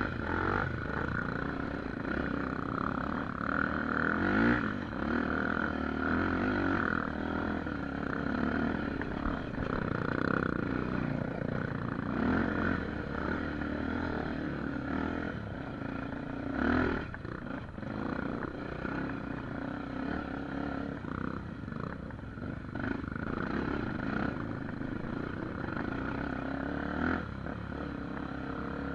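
Honda XR250 Tornado single-cylinder four-stroke dirt bike, bored to 280cc with an aftermarket exhaust, running along a trail with the revs rising and falling as it goes. Now and then there is a sharp knock, about three times.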